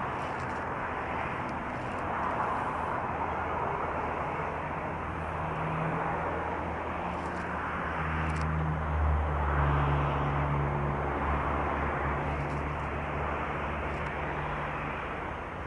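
Highway traffic noise, with one heavy vehicle's engine droning in, loudest about two-thirds of the way through and fading near the end.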